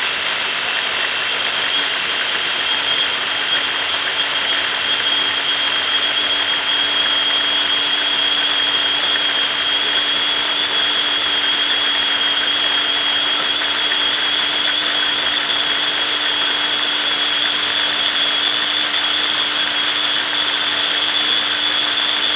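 Small electric food processor running at high speed, blending a wet chili and lemongrass sambal paste with oil. Its motor gives a loud, steady whine that rises slightly in pitch over time.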